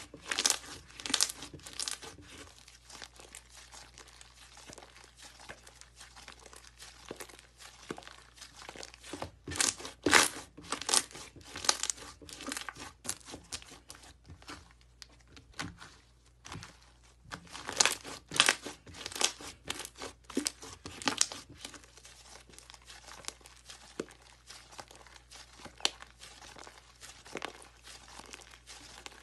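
Slime being squeezed, pressed and folded by hand, giving off crackling, popping clicks as air pockets burst. The clicks come in three louder spells: at the start, around ten seconds in, and from about eighteen to twenty-one seconds in, with softer crackling in between.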